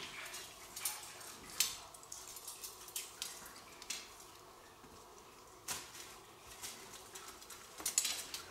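The metal hoops of a collapsible fishing keepnet clinking and knocking as the net is lifted out of the pool and its rings are gathered up. The sound is a string of scattered sharp clicks, with a quick cluster near the end.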